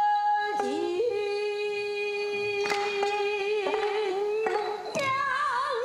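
Pansori singing by a woman. She holds a long, steady note, drops to a lower pitch with a short slide just under a second in, and holds that note before breaking into wide, wavering turns of pitch near the end.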